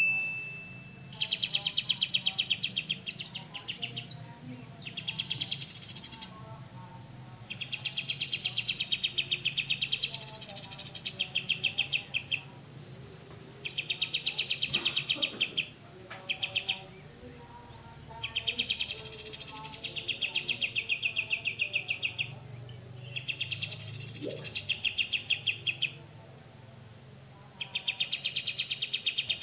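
Cucak jenggot (grey-cheeked bulbul) giving its 'besetan' call: rapid buzzing rattles of one to two and a half seconds each, repeated again and again with short pauses between.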